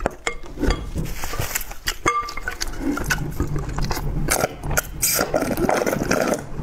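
Close-miked slurping and swallowing of milk tea drunk straight from the rim of a glass bowl, with many wet mouth clicks.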